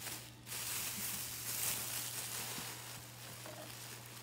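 Crinkly plastic packaging being handled and pulled open by hand in a cardboard shipping box: a crackling rustle, loudest from about half a second in until about two and a half seconds in.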